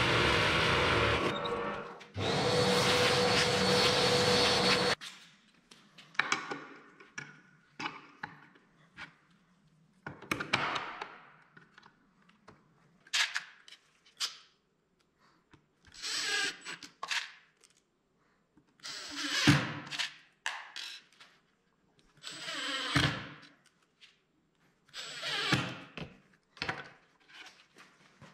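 Benchtop drill press running and boring into a particle-board cabinet door, briefly easing off about two seconds in. It is followed by a series of short bursts, about a second each, of a cordless drill driving screws to fit concealed cup hinges.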